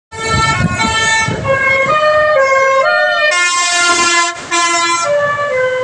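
Aktor telolet bus horn in its pianika-and-basuri voice, playing a quick tune of stepped, held notes, often two or more at once, with a brief pitch wobble about three seconds in.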